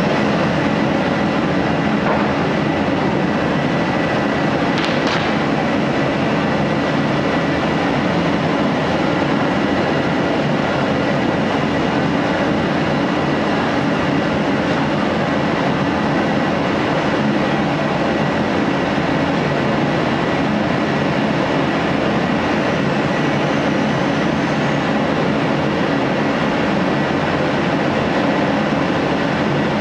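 Electric woodworking power tool running steadily on a wooden workpiece, with a brief high hiss about five seconds in.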